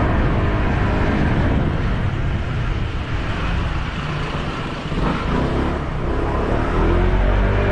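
Motorcycle running along the road with wind rush, a steady, loud engine and road noise. Music comes back in over the last couple of seconds.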